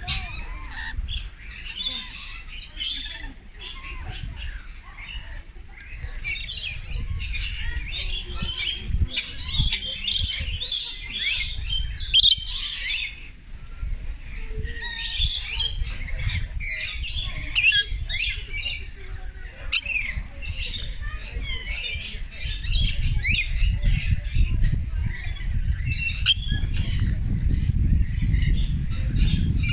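A flock of rainbow lorikeets chattering and screeching, many shrill calls overlapping, with one sharp louder squawk about twelve seconds in. A low rumble runs under the calls in the second half.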